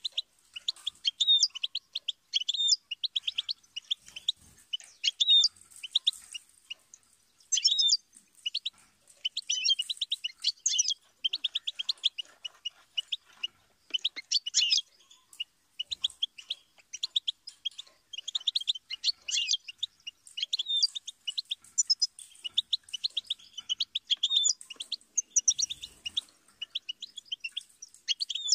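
European goldfinch singing: a fast, twittering song of rapid high notes in phrases broken by brief pauses.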